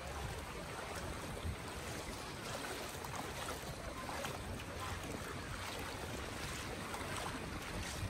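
Small lake waves lapping at a sandy shoreline, a steady wash of water, with light wind on the microphone.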